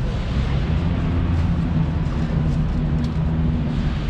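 Steady background din of a large, busy indoor exhibition hall: crowd noise and hall hum, with a few faint clicks.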